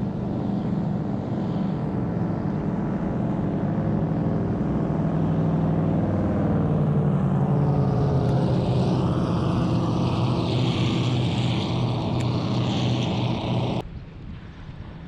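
Speedboat running at high speed close by: a loud, steady deep engine drone, with a hiss building in the upper range over the second half. The sound cuts off abruptly near the end.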